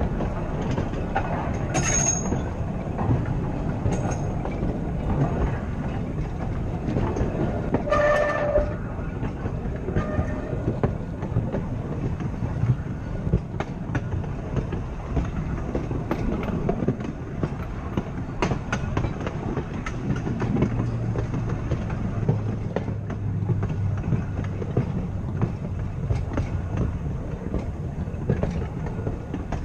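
Open-top Blackpool 'Boat' tram running along jointed track: a steady rumble of steel wheels on rail with repeated clicks as the wheels cross the joints. There is a brief pitched tone about eight seconds in, and a low hum from the motors comes up past the middle.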